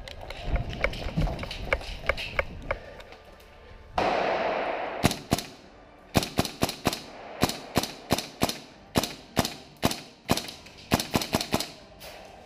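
Airsoft gas blowback rifle, a PTS Mega Arms MKM AR15, firing a long run of sharp shots in short strings of two or three. Before the shooting come uneven thuds of running footsteps and, about four seconds in, a loud rush of noise.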